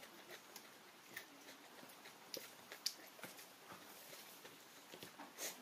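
Quiet eating sounds: scattered faint clicks, smacks and rustles as food is picked up by hand from a banana leaf and chewed, with a slightly louder rustle near the end.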